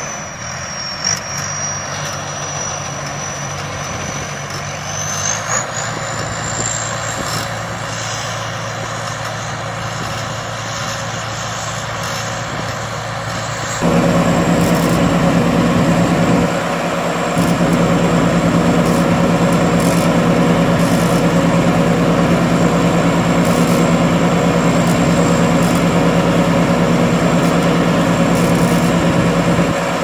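Thai Seng Yont rice combine harvester's engine running steadily while it unloads threshed rice into a six-wheel truck, with a thin high whine that climbs in pitch over the first several seconds. About 14 seconds in the machine suddenly gets louder, with a steady deep hum that holds, dipping briefly a couple of seconds later.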